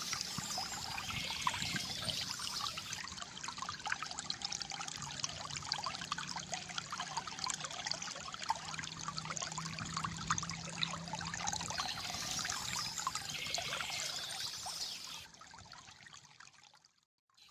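Small flow of water trickling and gurgling steadily. It fades down over the last two seconds to a moment of near silence just before the end.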